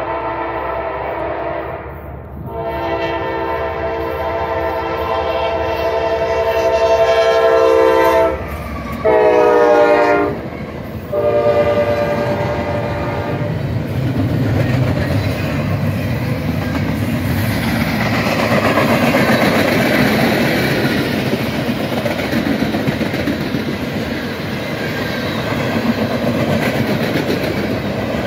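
Freight locomotive's multi-chime air horn sounding the grade-crossing signal: two long blasts, a short one whose pitch drops as the locomotive passes, then a long one. From the middle onward the loaded freight cars rumble and clatter steadily over the rails.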